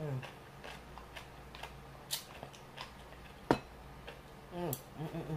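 Eating at the table: a wooden spoon clicking against a glass bowl of noodle broth, with one sharp knock about three and a half seconds in the loudest. Short hummed 'mm' sounds of enjoyment come at the start and again near the end.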